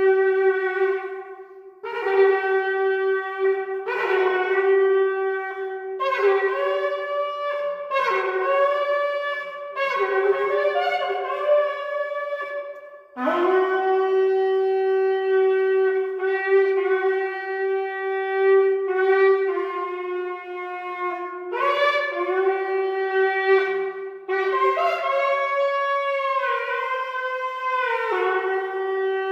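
A 36-inch shofar blown in long blasts on one low, steady note, with the upper overtones jumping and warbling above it. About halfway through, after a brief break, a note scoops up from below and is held for several seconds.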